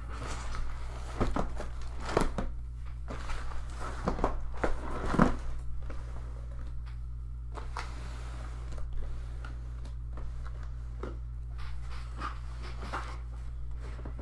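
Sealed trading-card boxes and their wrapping being handled on a table: scattered light knocks and crinkles, thickest in the first five seconds and sparser after, over a steady low hum.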